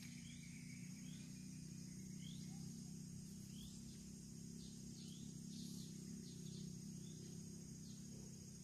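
Steady high-pitched insect drone with a short rising chirp repeating every second or so, over a low steady hum.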